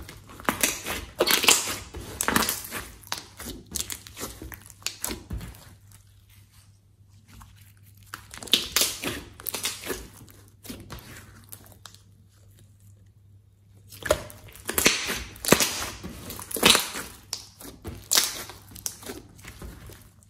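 Hands squishing and stretching a large mass of slime: sticky, crackling clicks and squelches in three bursts, with quieter pauses between.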